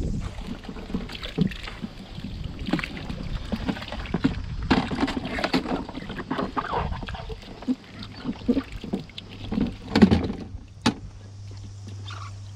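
Shallow river water sloshing and splashing, with irregular knocks and clunks as fishing gear (a landing net and a fish-carrier boat) is handled in the water.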